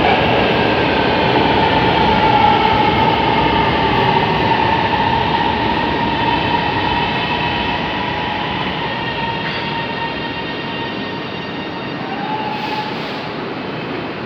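Electric metro train arriving, its running noise easing off as it slows. A high electric motor whine with several tones, some gliding down in pitch, runs over the wheel and rail noise.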